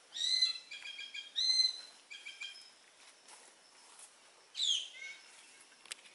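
Wild birds singing in the forest: several short whistled phrases in the first couple of seconds, then a falling call near five seconds. A single sharp click near the end.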